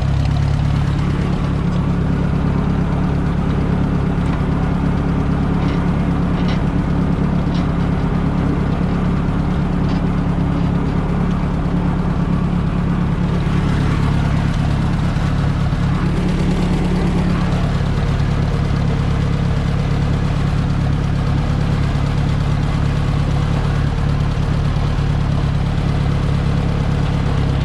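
Ford 860 tractor's four-cylinder engine running steadily just after starting, with a slight change in its note about two-thirds of the way through.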